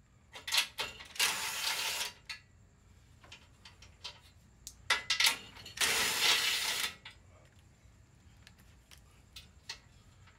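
Small Milwaukee cordless impact gun running in two short bursts of about a second each, loosening bolts, with a few sharp clicks before and between the bursts.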